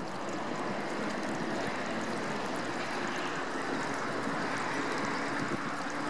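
Steady outdoor background hiss, wind-like, with a low hum that grows stronger and rises slightly in pitch in the second half.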